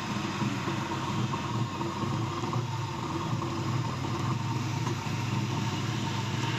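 JCB 3DX backhoe loader's diesel engine running steadily while the backhoe arm digs and lifts, with a thin steady whine above the engine note.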